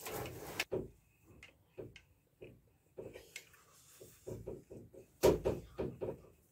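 Metal engine parts and tools being handled on a workbench during assembly: a series of light, irregular knocks and clicks, with a brief scraping rustle at the start and a louder knock a little after five seconds in.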